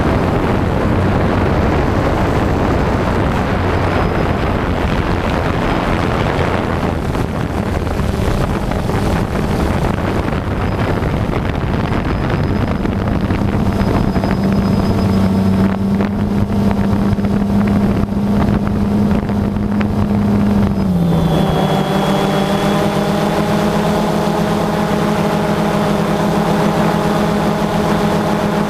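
DJI Phantom 2 quadcopter's motors and propellers humming steadily, heard through the GoPro camera mounted on it, with wind rushing on the microphone in the first part. About 21 seconds in, the hum drops a little in pitch and settles into a clearer, steady tone.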